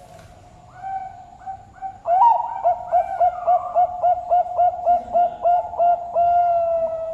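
Zebra dove (perkutut) singing its full song: soft opening notes, a loud rising note, then a quick run of about a dozen short coos at roughly three a second, ending in one long held note.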